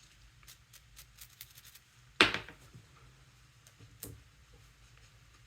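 Small metal and plastic regulator parts being handled on a workbench: light scattered clicks, a sharp knock with a brief ring about two seconds in, and a smaller knock about four seconds in.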